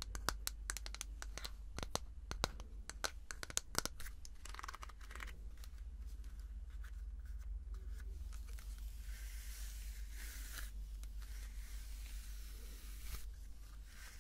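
Fingers flicking and rubbing the stiff bristles of a plastic paddle hairbrush, close up: a quick run of sharp clicks for the first four seconds, then a steadier scratchy rustling as the bristles are rubbed and the brush is drawn through long hair.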